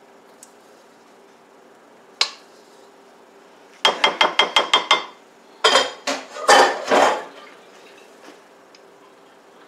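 A spatula knocking and scraping against a glass baking dish while batter is cleared out of it. There is a single clink about two seconds in, then a quick run of about eight taps in a second, then a few louder scraping knocks.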